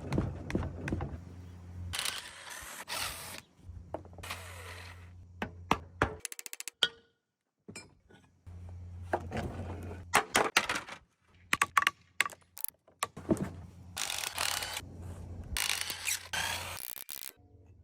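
Hand and power tools working on an industrial electric motor as it is taken apart for its copper: metal clanks, knocks and a rapid ratcheting run, with several noisy power-tool bursts about a second long over a low steady hum.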